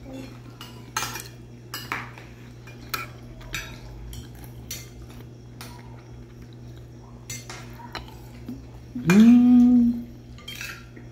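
Metal spoon clinking and scraping against a plastic plate as a child eats, in scattered irregular clicks over a steady low hum. About nine seconds in, a short hummed vocal 'mm', rising then held, is the loudest sound.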